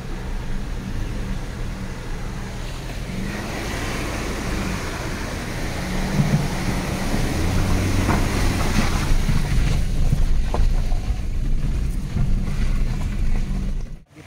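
Car engine running with water rushing and splashing around it as the car drives through a flooded low-water crossing, heard from inside the car. The sound cuts off briefly near the end.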